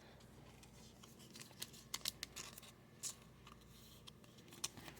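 Trading cards and a foil pack wrapper being handled: faint, scattered crinkles and clicks, several from about a second and a half in.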